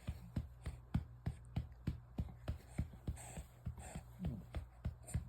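A hand patting a baby's back in a steady rhythm, about three pats a second, to bring up a burp.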